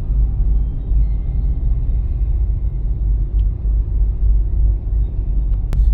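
Steady low rumble of a vehicle driving along while towing a camper, with one sharp click near the end.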